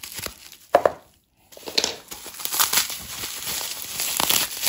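Bubble wrap and plastic wrapping crinkling and crackling as an item is unwrapped by hand, with one sharp crackle a little under a second in and a brief silent gap just after, then continuous crinkling.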